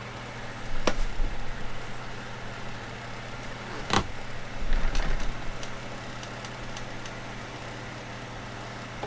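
Steady hum of a shop fan, with workshop handling noises over it: a sharp click about a second in, a louder knock about four seconds in, some low bumps and a few faint ticks.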